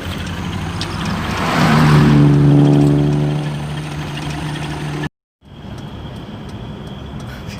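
Road traffic with a running engine. A heavy vehicle passes close by, its noise swelling loudly about two seconds in with a steady engine drone. The sound drops out abruptly around five seconds in and returns as steadier, quieter engine and road noise.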